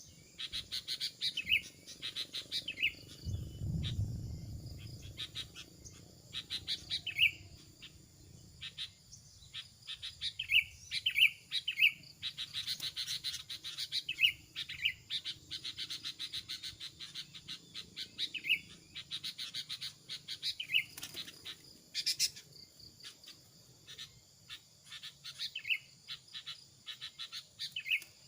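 Bird calls: short chirps, often in quick pairs, repeating every second or two over a dense, fast ticking chatter. A brief low rumble comes about three to five seconds in.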